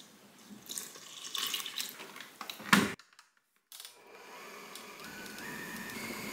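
Milk and water poured into a stainless steel mixing bowl for about three seconds. After a short break, a Wiswell stand mixer's motor starts turning the dough hook, running steadily with a whine that steps up in pitch twice.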